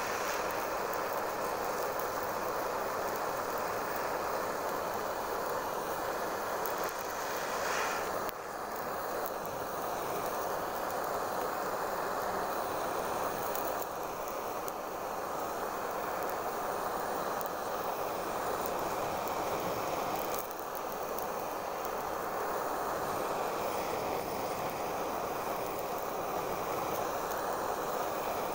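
Handheld gas torch burning with a steady hiss of flame, with a brief surge and drop about eight seconds in.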